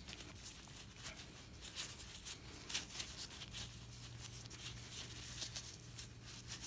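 Faint rustling and scattered light clicks from hands handling a shop rag and small pump parts, over a low steady hum.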